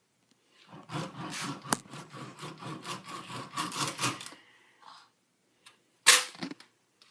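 Rapid clicking and scraping of a hand tool working at a golf ball, running for about three and a half seconds, then one loud sharp crack about six seconds in.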